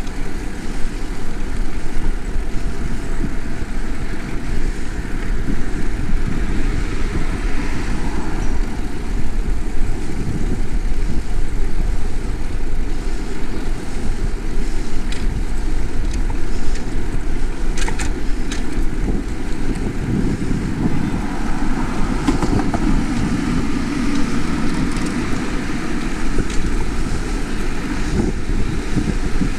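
Wind rushing over a chest-mounted action camera on a moving bicycle, with city traffic going by. The traffic noise swells about two-thirds of the way through, and there are a couple of sharp clicks just before.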